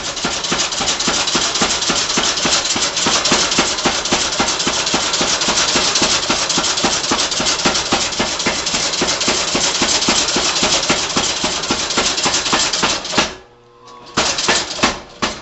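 A homemade junkyard power hammer's 18-pound head, driven by an electric motor and belt, pounds a hot steel bar on the die in a rapid, steady run of blows while drawing it out. Near the end the hammering stops for about a second, then starts again with a few single blows.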